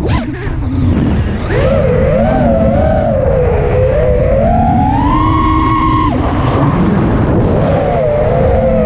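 FPV quadcopter's brushless motors and propellers whining, the pitch wavering up and down as the throttle is worked. There is a short sharp noise at the very start, and the whine climbs and then drops suddenly as the throttle is chopped about six seconds in.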